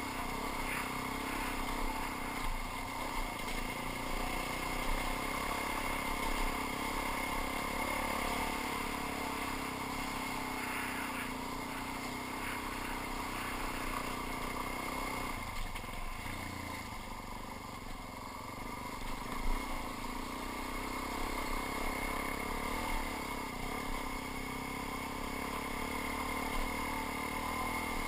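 Suzuki DR-Z400 dual-sport motorcycle's single-cylinder four-stroke engine running under way, heard from the rider's helmet with wind rush over it. It eases to a quieter level for a few seconds a little past halfway, then picks back up.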